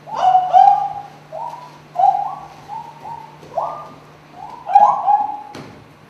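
A run of about ten short cooing calls, each sliding up and then holding a note, some overlapping one another, with a few sharp clicks among them. A low steady hum runs underneath.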